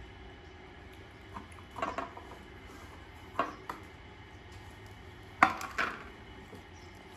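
Tableware clinking: a few short knocks and clatters, like a spoon against a bowl, with the loudest cluster about five and a half seconds in.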